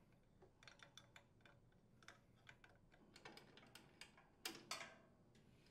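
Faint, scattered metallic clicks of a small wrench turning the screws on a small engine's sheet-metal cylinder head shield. A couple of slightly louder clicks come near the end as the shield is handled.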